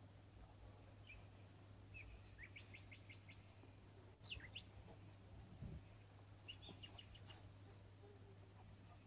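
Near silence over a low steady hum, with faint runs of short, high chirps several times, the longest a quick series of about five.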